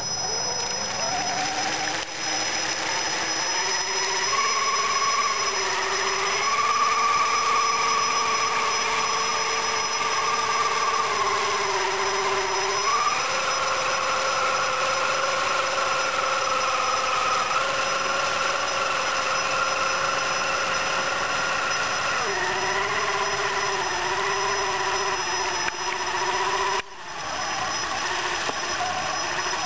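Electric motor and drivetrain of a 1/6-scale RC monster truck whining under throttle while its tyres churn through water. The pitch rises in the first few seconds, steps up about a third of the way in, drops back down later, and cuts out briefly near the end.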